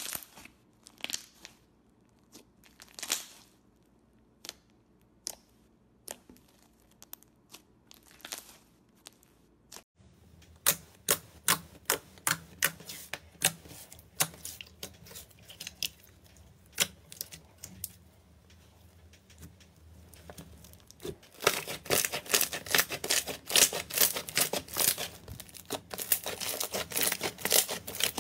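Hands squeezing and kneading slime, with sharp pops and crackling clicks as trapped air bursts. The pops are sparse for the first several seconds, then come in a dense crackling run that grows loudest near the end.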